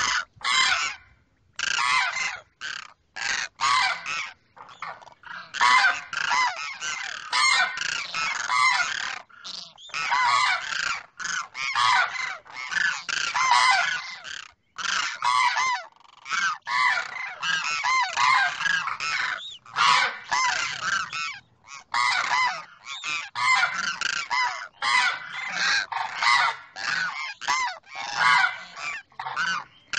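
A pair of demoiselle cranes calling back and forth, the male calling to the female. Their honking calls come in quick runs, almost without a break, with a few short pauses, the longest about 14 seconds in.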